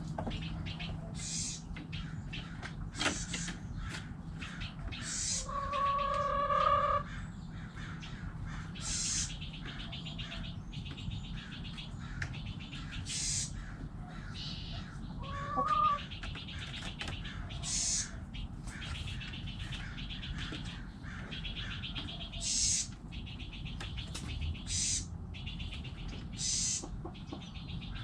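Backyard chickens with small birds chirping over and over in the background. A chicken gives one drawn-out call about five seconds in, and a short rising call comes about halfway through.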